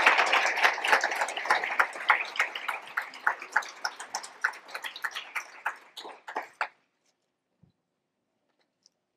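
Audience applauding: dense clapping that thins out into a few scattered claps and stops about two-thirds of the way through.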